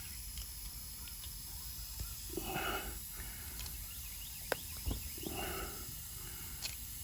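Quiet handling of a tire plug kit: a sticky rubber repair plug strip being worked through the eye of the insertion needle, with a few light clicks and two short low sounds, about two and a half and five seconds in, over a steady faint hiss.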